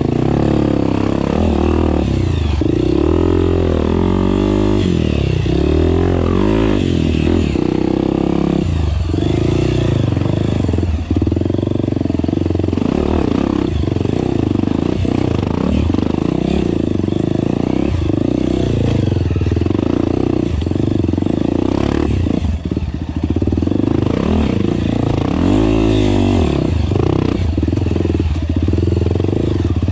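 Honda CRF 250F dirt bike's single-cylinder four-stroke engine revving up and down as it is worked over rocks, with occasional knocks and clatter.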